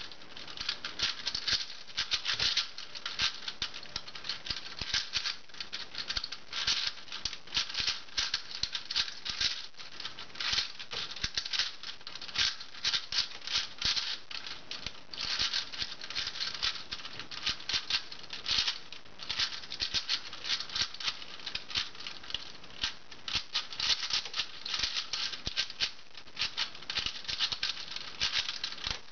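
Shengshou v3 4x4 speedcube being turned fast in the hands: a dense, continuous run of quick plastic clicks and clacks, broken by a few short pauses.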